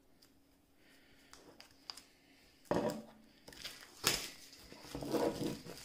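Plastic shrink-wrap on a phone box being cut with a knife and peeled off: a few faint clicks, then bursts of crinkling plastic film, with a sharp knock about four seconds in.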